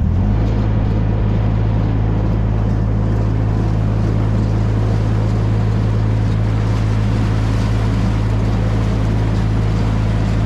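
Narrowboat's inboard engine running steadily as the boat cruises along the canal, a constant low hum.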